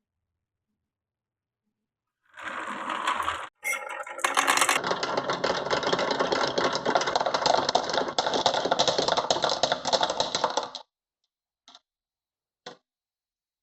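Marble run clattering: a dense, rapid rattle of marbles and toy parts for about eight seconds, starting after a couple of seconds and cutting off suddenly, then two single clicks.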